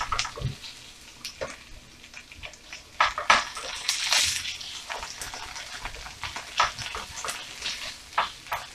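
A spatula stirring and scraping diced onion, sweet peppers and tomato paste around a stainless steel frying pan, over a light sizzle as the paste cooks down. The scrapes come irregularly and are loudest about three to four seconds in.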